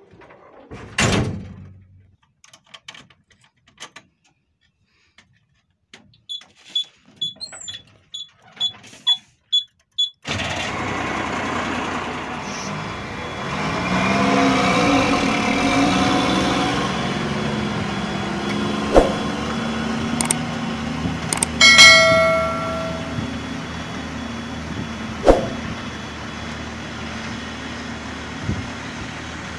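A loaded diesel tipper truck's engine running as the truck pulls away, swelling a few seconds in, with a horn sounding for about a second and a half past the middle. Before that come a few scattered clicks and a quick row of short beeps.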